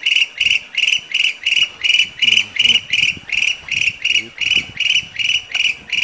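An insect chirping in a steady, fast pulse, about four or five high-pitched chirps a second, unbroken throughout.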